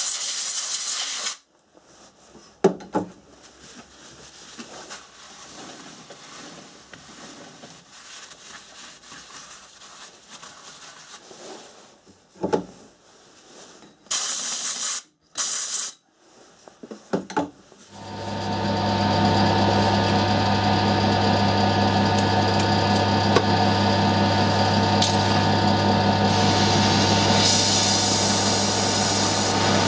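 Short hissing blasts of compressed air from a blow gun cleaning a motorcycle flywheel rotor, with a few sharp knocks and some scraping between them. About 18 seconds in, a gas torch starts to burn steadily with a low hum, heating the rotor so the chilled steel magnet ring can be fitted.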